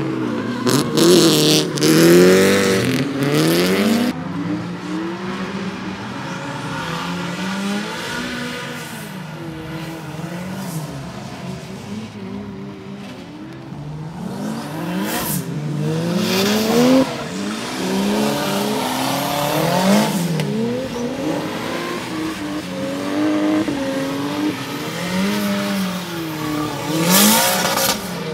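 Drift cars' engines revving and dropping again and again as the throttle is worked through the slide, the pitch swooping up and down. Bursts of tyre noise about a second in and again near the end.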